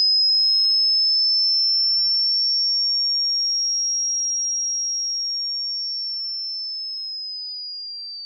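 A single very high-pitched electronic sine tone, one pure note that drifts slightly up and then begins to fall, fading steadily as it goes.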